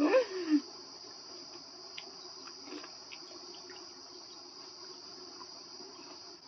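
Steady high-pitched insect chirring, like crickets, with a short hummed 'mm' at the very start and a few faint clicks of eating.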